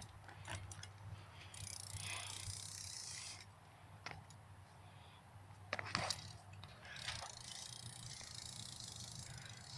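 BMX rear hub ratcheting in two stretches of rapid, buzzing clicks as the wheel freewheels, with a few sharp knocks in between.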